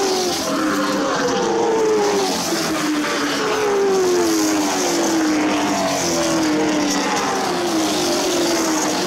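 Several late model stock cars' V8 engines run at racing speed as the pack goes by one car after another. The engine notes overlap and each falls in pitch as it passes.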